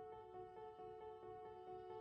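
Quiet background music: held notes over a light, even pulse of about four to five beats a second.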